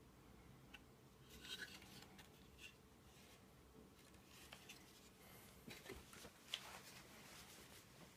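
Near silence with faint handling noises: light rubs and small clicks of a graphics card being turned over in the hands, with one sharper click about six and a half seconds in.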